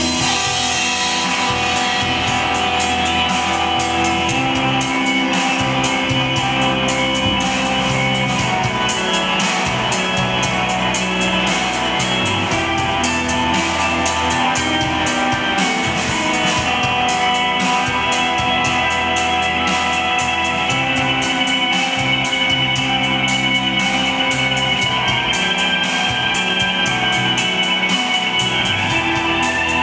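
Recorded music with guitar and long held notes, playing steadily.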